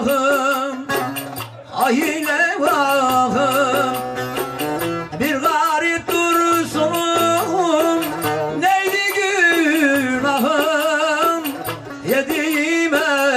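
Turkish folk music: a man singing long, wavering, ornamented notes over a plucked bağlama saz.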